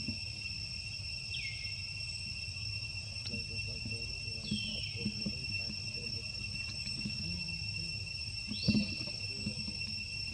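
Steady, high-pitched drone of insects in the undergrowth. Three short falling calls sound over it, with light rustling and a soft knock near the end.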